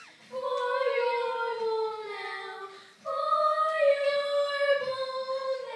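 A young girl's singing voice holding two long notes: the first slowly gliding down, then a brief break about three seconds in, and the second held steady.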